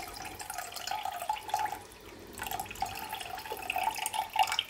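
Soaking liquid from dried porcini mushrooms being poured slowly and carefully from a container into a pan of sweating mushrooms, trickling in unevenly.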